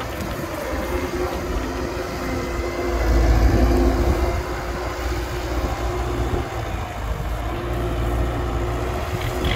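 Heavy diesel engine of construction machinery running, a low rumble that swells louder for about a second roughly three seconds in.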